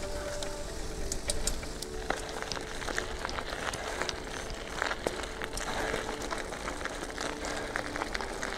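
Bicycle with knobby tyres rolling over a rough dirt track, heard through a camera mounted on the bike: a steady hiss and rumble of tyre noise with frequent sharp clicks and knocks.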